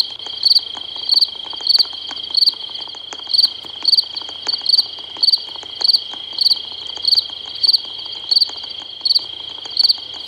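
Looping night-time forest ambience from a video game: a steady high cricket trill with a louder chirp repeating evenly, a little under twice a second.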